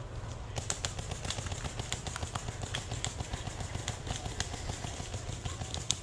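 Paintball markers firing in scattered pops, several a second and irregular, starting about half a second in, over a steady low rumble.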